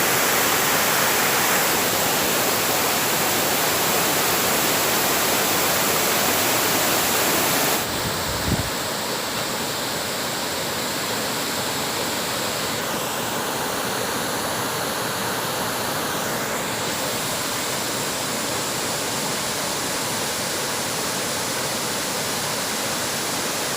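Waterfall: water falling and rushing in a steady, even wash of noise. About eight seconds in the sound changes abruptly and drops a little in level, with a brief low thump just after.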